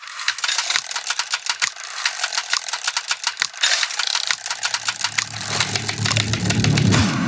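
Intro of an electronic song built from dense, rapid mechanical clicking and rattling, like clockwork gears. A low bass hum comes in about five seconds in and swells toward the beat.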